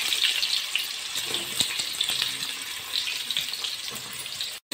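Sliced onions sizzling and crackling in hot oil as they are stirred, freshly added and being fried towards golden brown. The sound cuts out for a moment near the end.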